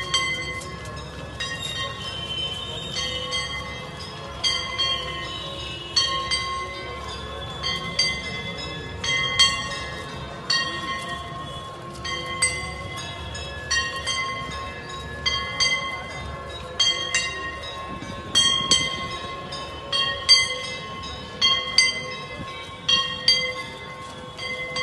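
Metal bells struck over and over, roughly once a second, each strike ringing on over a steady held ringing tone underneath.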